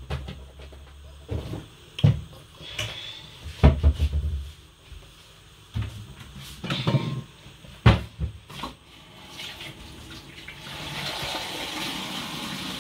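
A few sharp knocks and clatters of kitchen things, then from about ten seconds in a kitchen tap running steadily.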